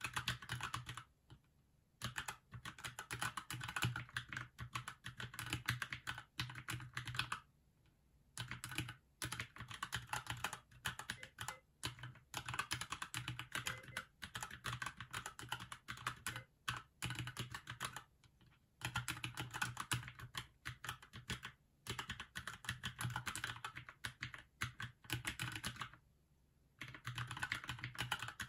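Fast touch-typing on a Keychron keyboard: quick runs of key clicks, each run broken by a pause of about a second, four times.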